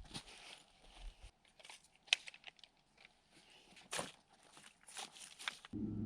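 A hunter's footsteps crunching at an uneven pace over the forest floor. Near the end the crunching stops abruptly and gives way to a steady low hum.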